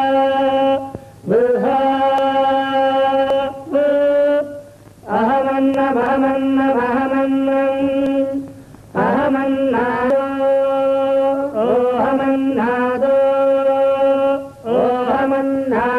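A voice chanting a Vedic mantra in long, steady held notes, phrase after phrase with short breaks for breath.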